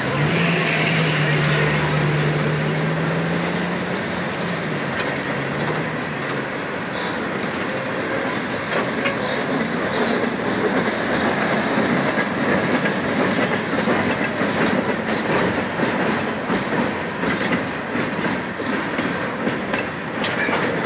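Freight cars of a Norfolk Southern train rolling past close by: a steady rumble of steel wheels on rail with clickety-clack from the wheel sets. A low hum in the first few seconds fades out.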